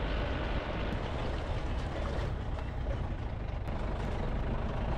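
Safari jeep driving along a dirt forest track: a steady engine and road rumble, heavy in the low end.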